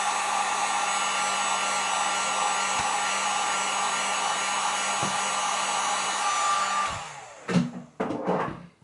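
Heat gun blowing steadily to soften a phone screen's adhesive, switched off about seven seconds in and running down. A few short knocks follow near the end.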